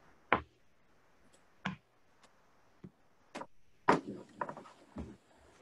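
Scattered short clicks and soft knocks, about seven over a few seconds, over a faint quiet line.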